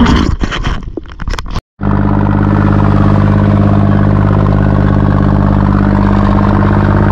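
Irregular knocks and clatter for the first second or two, then, after an abrupt cut, a fishing boat's engine running loud and steady.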